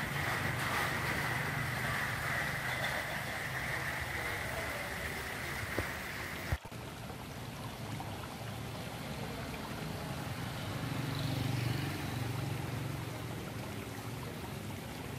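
Steady rush and trickle of moving water in an ornamental koi pond, with a low hum underneath. About six and a half seconds in the sound breaks off abruptly and continues as a softer, duller wash.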